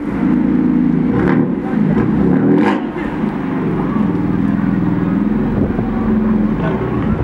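BMW M4 DTM Safety Car's twin-turbo straight-six running at low, fairly steady revs through its quad exhaust as the car rolls slowly away.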